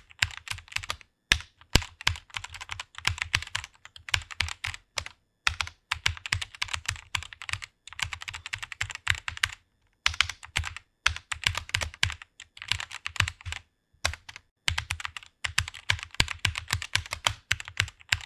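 Fast typing on a computer keyboard: rapid runs of keystrokes broken by short pauses every few seconds.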